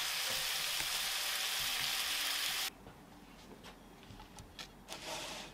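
Pork belly rolls sizzling in a frying pan in a bubbling soy-sauce and mirin glaze, a steady hiss. The sizzle cuts off suddenly about two and a half seconds in, leaving a few faint light clicks.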